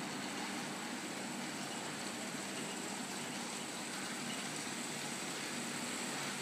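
HO scale model trains running on the layout's track: a steady whir of the small locomotive motors and wheels rolling on the rails.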